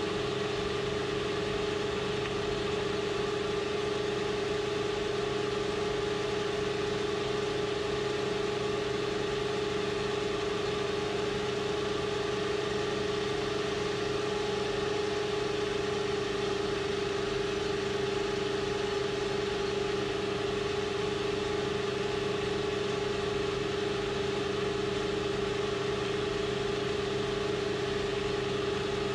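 AL960B metal lathe running with a steady hum while its indexable tip takes a turning pass along a metal deck-spindle shaft.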